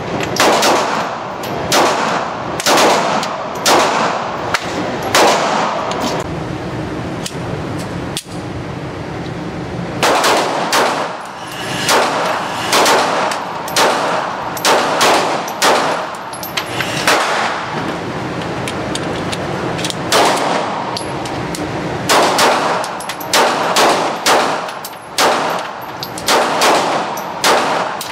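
Glock 42 .380 ACP pocket pistol fired in quick strings of shots with short pauses between them, each shot sharp and echoing off the walls of an indoor range.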